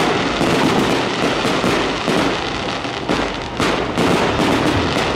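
Fireworks display: aerial shells bursting overhead, a loud, irregular run of bangs and crackles coming several times a second.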